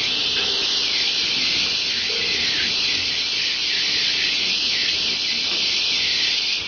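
Steady high-pitched hiss from a pneumatic automatic screw-driving assembly machine at work.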